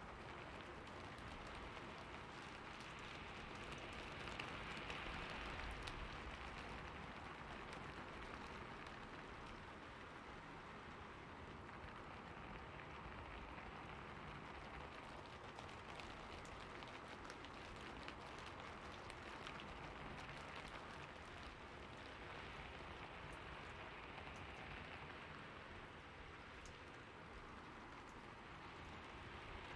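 Steady rainfall with a dense patter of individual drops hitting a surface, swelling slightly about five seconds in.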